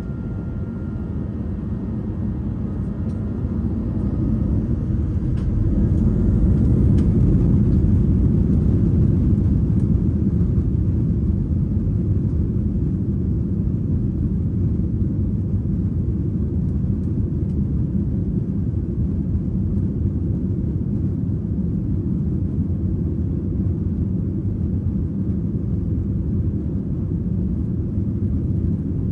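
Jet airliner heard from inside the cabin at the start of its takeoff roll: a steady low rumble of engines and runway. It swells over the first several seconds as the engines power up, then holds. A faint thin whine sounds for the first few seconds.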